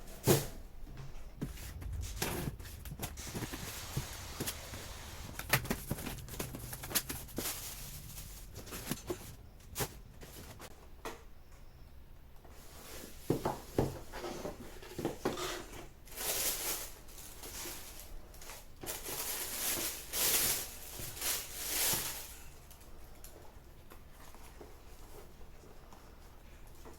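Household handling noises: scattered knocks and clicks, with a run of rustling about two-thirds of the way through.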